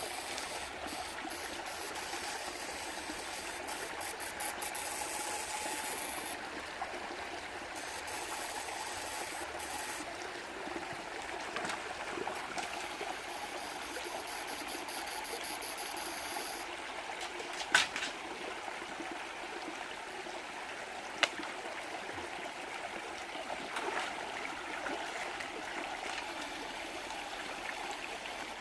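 Water of a mountain stream below a waterfall, running steadily. A high buzz cuts in and out over roughly the first half, and there are two sharp clicks, about eighteen and twenty-one seconds in.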